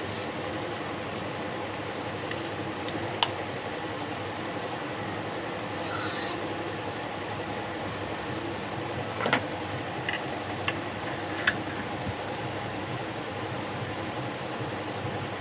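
Electric fan running with a steady whir and faint hum, with a few sharp clicks and a brief high-pitched call about six seconds in.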